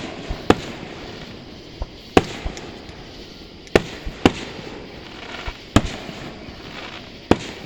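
Fireworks display: about six sharp bangs of aerial shells bursting at irregular intervals of one to two seconds, each trailing off with an echo.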